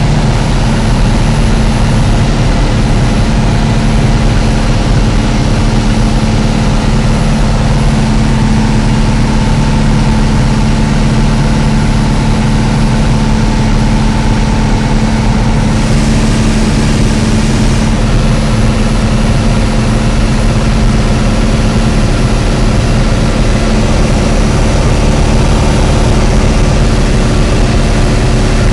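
Cabin noise of a light single-engine piston aircraft in flight: the engine and propeller drone steadily and loudly, with a constant rushing hiss over it.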